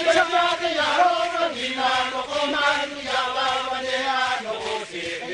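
Group of Ni-Vanuatu men chanting together in a traditional custom chant, several voices holding long, slightly wavering notes in unison.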